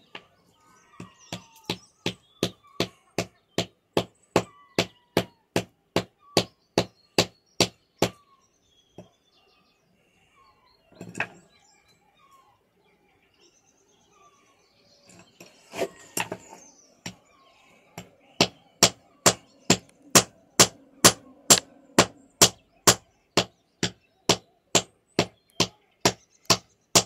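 Club hammer striking stones over and over to crack fossils out of them, sharp stone-on-steel impacts at about three blows a second. The blows come in two long runs, with a pause of several seconds in the middle broken by a single knock.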